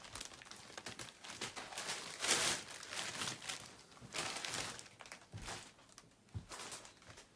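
Rustling of heavy embroidered silk dress fabric being handled and laid out, in irregular bursts, the loudest about two seconds in.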